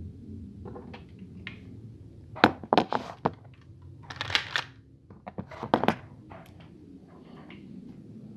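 Handling noise: a few sharp clicks and knocks in a cluster about two and a half seconds in, a rustle around four seconds, and another pair of sharp clicks near six seconds.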